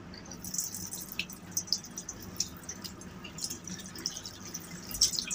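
Water running with a strong flow from a train washroom tap onto hands and splashing in a stainless steel washbasin, starting about half a second in. A steady low hum of the running train sits underneath.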